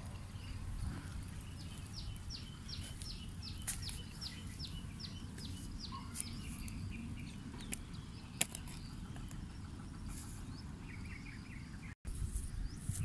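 Outdoor ambience with a steady low rumble. A bird calls a quick series of short descending chirps, about three or four a second, for a few seconds, and a few sharp clicks sound now and then.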